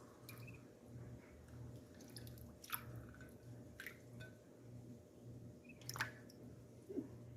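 A few faint drips and small wet clicks, over a low hum that pulses about three times every two seconds.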